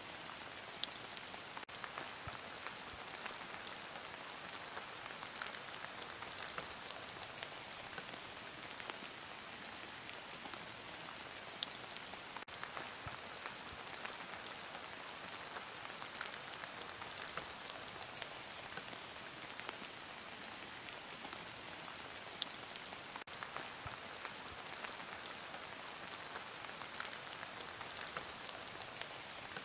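Heavy rain falling steadily on a surface: an even hiss full of small drop ticks, with a few louder single drops standing out now and then.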